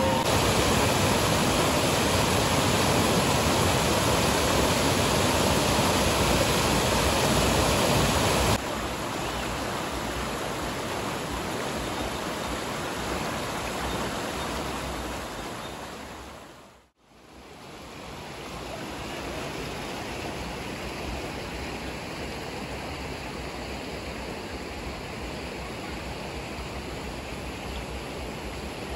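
Rushing river water: a steady, even roar of flowing water. It drops abruptly in level about eight and a half seconds in, then fades out to nothing and back in again around seventeen seconds.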